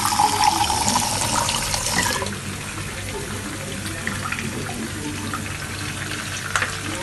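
Kitchen tap water running into a plastic cup, its pitch rising slightly as the cup fills, then shut off about two seconds in.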